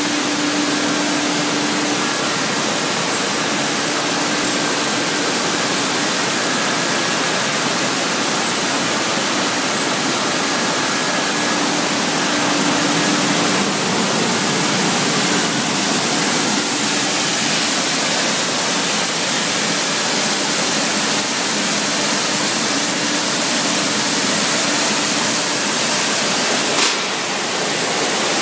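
Industrial crate washer running, with a steady rush of wash water spraying and pouring through its rotating stainless-steel drum filter; a faint hum comes and goes. A brief knock near the end.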